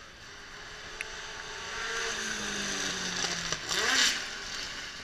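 A racing car driving up the hillclimb course and passing close by. The engine builds in loudness and is loudest about four seconds in as it goes past, its pitch falling.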